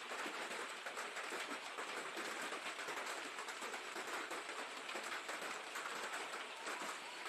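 Heavy rain falling, a steady hiss of many fine drops.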